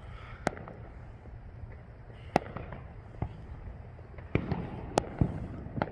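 Fireworks going off: about seven sharp bangs and pops at irregular intervals, a small cluster of them after about four seconds, over a steady low background rumble.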